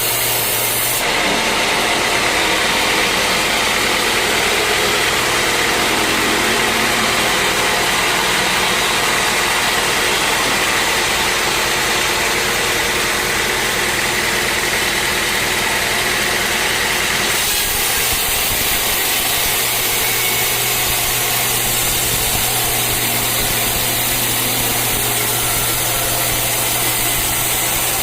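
Sawmill machinery running steadily, its saw cutting through a teak log from about a second in until about seventeen seconds in, with a brighter, hissing sound while it cuts. After that the machine runs on without cutting.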